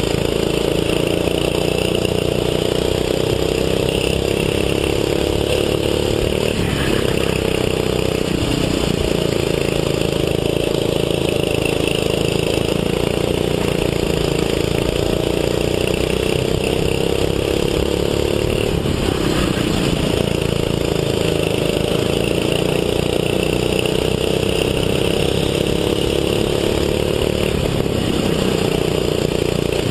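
Racing go-kart engine at full throttle, heard from on board. Its pitch climbs slowly along the straights and drops sharply about four times as the kart slows for corners.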